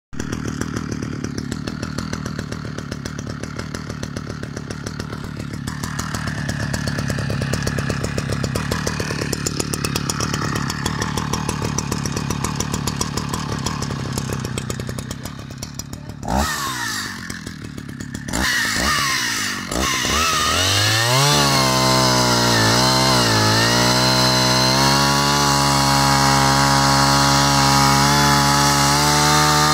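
Vintage Husqvarna 65 two-stroke chainsaw engine idling with a fast, even beat. About halfway the sound breaks off and the engine comes back, climbing to a steady high speed. Its pitch dips and recovers a couple of times before holding.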